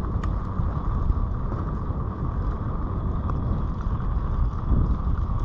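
Mountain bike rolling along a gravel track: wind buffeting the helmet-mounted microphone over the steady rumble of the tyres on loose gravel, with a couple of faint clicks.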